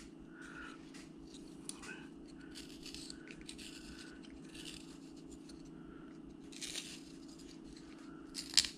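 Carving knife shaving wood in short, faint scraping cuts, one every second or so, over a steady low hum.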